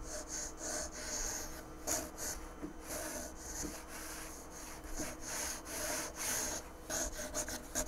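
Sheet of paper sliding back and forth under a 3D printer nozzle, faint rubbing strokes about once a second. This is the paper test while setting the Z offset, checking for a light drag as the nozzle is lowered.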